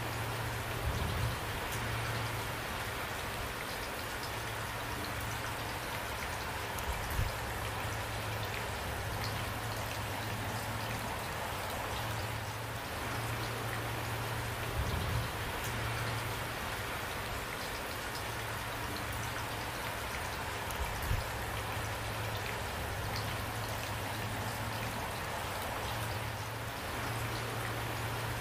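Steady rain falling, an even dense hiss of drops, with a few brief low thumps every six to eight seconds.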